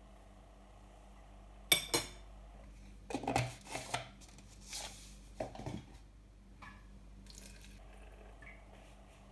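A spoon knocking and clattering against a plastic blender jug as seasoning is tipped in: two sharp taps a little under two seconds in, then more clatter for a few seconds. Water trickles faintly into the jug near the end.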